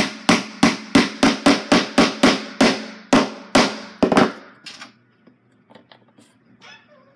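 A hammer driving a nail into a wooden kit piece: a quick run of about a dozen sharp blows, roughly three a second, stopping a little after four seconds in. After that there are only a few faint small knocks.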